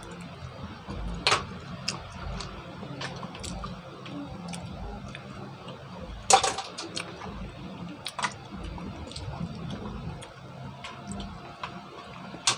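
Green mussel shells clicking and clacking as they are pried apart by hand over a metal pan. The clicks are scattered, with the sharpest about a second in and about six seconds in.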